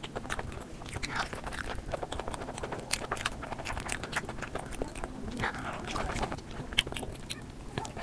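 Close-miked chewing and mouth smacking while eating soft bread bun, with many small, quick wet mouth clicks throughout.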